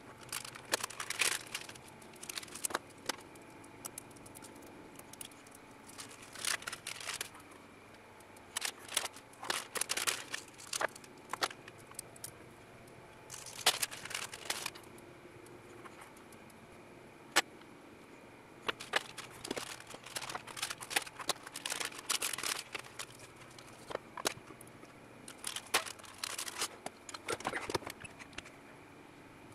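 Metallized anti-static component bags crinkling as they are handled, in repeated bursts of crackling separated by short quiet gaps, with a few single sharp clicks between them.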